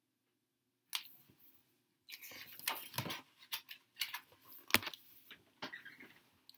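Paper pages of a picture book being turned and the book handled: rustling and crinkling with scattered sharp taps, thickening after the first couple of seconds, with one sharpest tap about two-thirds of the way in.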